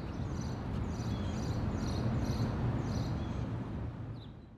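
Outdoor ambience: a steady low rumble with short high chirps repeating about twice a second, fading out near the end.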